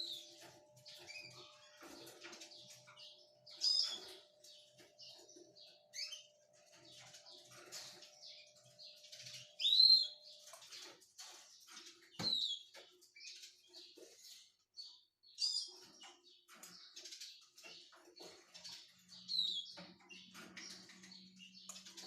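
Quail chicks peeping: short, high chirps that fall in pitch, every second or two, with faint scratching and tapping between them.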